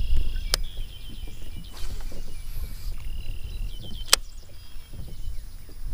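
Low wind rumble on the microphone with faint high chirping, and two sharp clicks, about half a second in and about four seconds in, from handling a baitcasting rod and reel.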